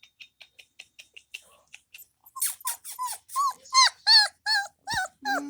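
German shepherd puppy whining in a run of short high whimpers, each dropping in pitch, about three a second, starting about two seconds in. Before them, faint rapid clicks.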